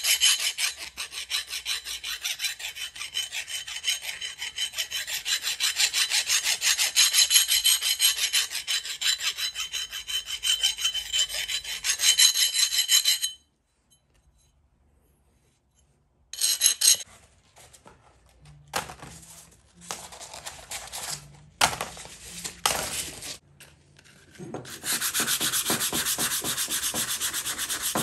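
Hand-abrading work on an old hatchet: rapid back-and-forth rubbing strokes with a steady high ring under them. The strokes stop suddenly about thirteen seconds in. After a short gap they return as scattered short strokes, and near the end they settle back into a steady rapid rhythm.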